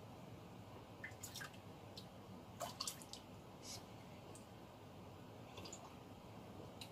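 Quiet kitchen with a few faint drips and small clinks from a ladle and ceramic mug as a freshly made corn drink is served and sipped.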